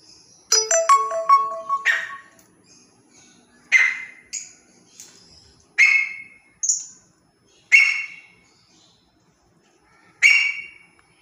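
Grey francolin (teetar) calling. A rapid run of short clipped notes comes about a second in, followed by a string of loud, harsh calls spaced one to two seconds apart.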